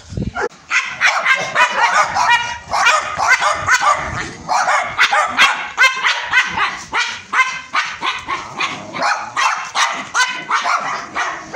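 Several small white dogs barking rapidly and without a break, their high barks overlapping several times a second.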